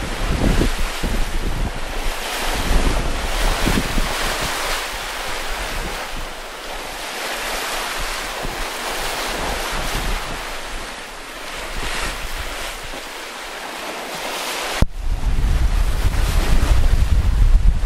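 Open-ocean waves and wind heard from the bow of a sailing yacht under way: a steady rush of water and wind. After a sudden change about fifteen seconds in, heavier wind buffets the microphone.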